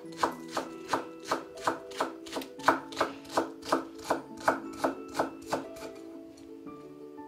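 Chef's knife chopping green onions on a wooden cutting board: even strokes, about three a second, that stop about five and a half seconds in. Soft background music plays throughout.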